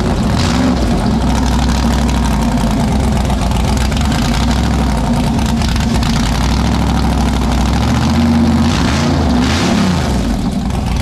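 Texas Speed 416ci LS3 V8 running at a steady idle, revved up and back down once near the end.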